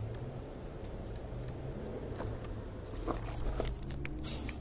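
Scattered light clicks and rustling from handling a van door's interior panel and reconnecting its wiring connector, with a few sharper clicks about three to four seconds in. A steady low hum runs underneath.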